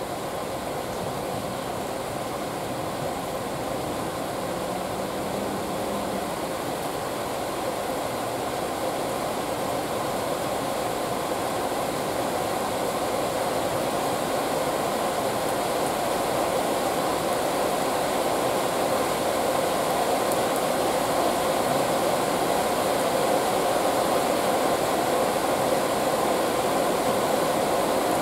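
Ex-Tokyu 7000-series stainless-steel electric train approaching slowly, its running noise growing gradually louder over a steady hiss.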